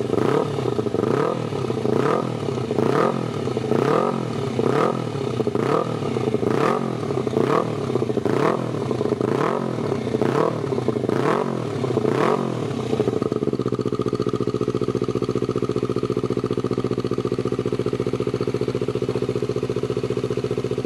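Honda CBR250RR motorcycle engine through a Tsukigi Racing racing-type stainless steel silencer, blipped in short revs about once a second. About 13 seconds in it settles to a steady idle.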